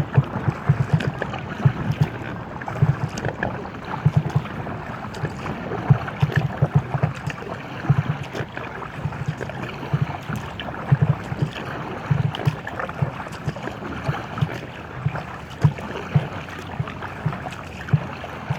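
Paddling in an inflatable kayak: steady splashing and lapping of water along the hull, with frequent low thumps from paddle strokes and water slapping the inflatable hull, and some wind on the microphone.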